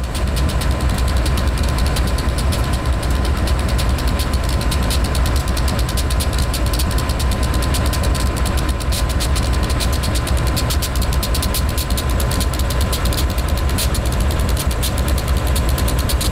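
CSX diesel-electric freight locomotives running at close range: a loud, steady, heavy low rumble with a fast rattling beat and a thin steady whine above it.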